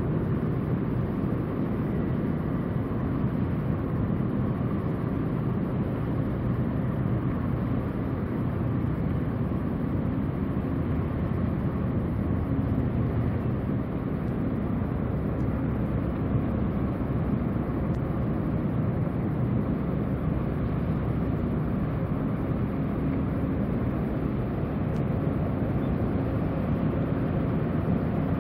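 Steady low rumbling drone of the passing container ship WAN HAI 505's engine, heard through the even background noise of open harbour air.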